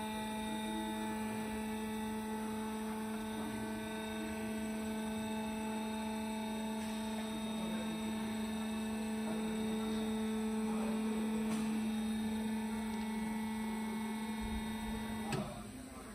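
Electric scissor lift table's motor drive running with a steady hum as the table rises. It stops with a click about fifteen seconds in.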